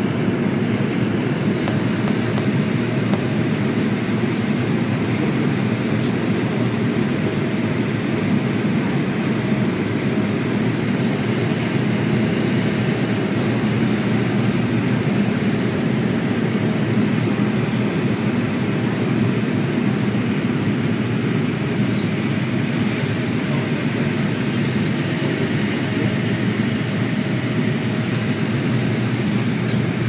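Steady cabin noise of a passenger plane in flight, engine and airflow heard from inside the cabin, with a faint steady hum at times.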